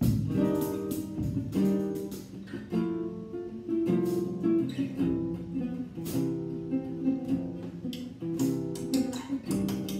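Acoustic guitar strummed in chords: sharp strokes with ringing notes, the chord changing every second or so.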